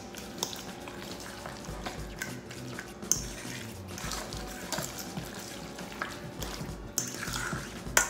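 Fork mashing and stirring chunky avocado in a metal bowl: soft squishing broken by irregular clinks of the fork against the bowl, the sharpest about three seconds in and near the end.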